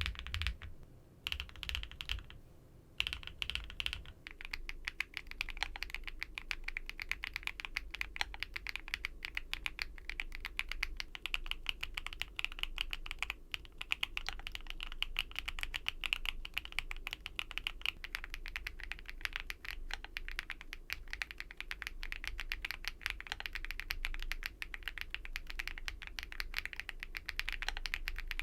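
Keynetix Hertz87 foam-packed mechanical keyboard being typed on: a few separate keystrokes at first, then fast continuous typing from about four seconds in.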